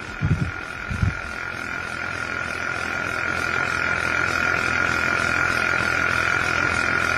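A computer case gives off a steady high-pitched whine over a buzzing hiss that slowly grows louder, with two low thuds in the first second. It is the sound of a PC overheating: the case has got very hot and is starting to smoke.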